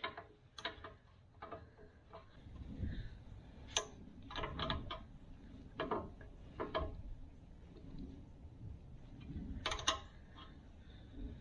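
Faint, scattered metal clicks and short scrapes from hand work on a backhoe bucket's pin and nut, spaced a second or so apart, with a sharper click about 4 s in and another near 10 s.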